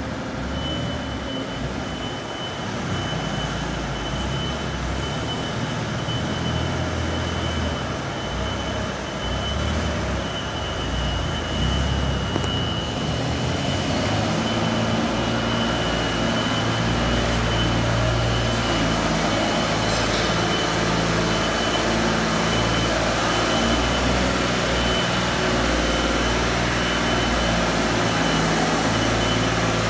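Propane-fuelled Hyster H50FT forklift engine running as the truck drives and turns, with a steady high whine over it. About halfway through, the engine note grows louder and steadier as the hydraulics raise the mast.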